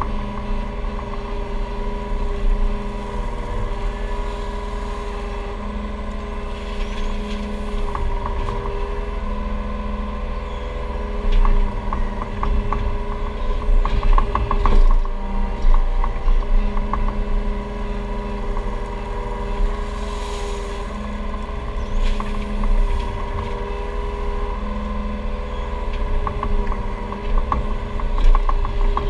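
Takeuchi TB235 mini excavator heard from inside its cab: the diesel engine runs steadily with a constant hydraulic whine. About halfway through, and again near the end, it gets louder with clicks and knocks as the boom and bucket work.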